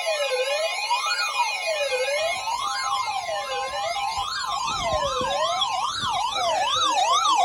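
Electronic siren alert tone wailing up and down, the sweeps speeding up into a fast yelp in the second half, with a steady held tone sounding under it through the middle.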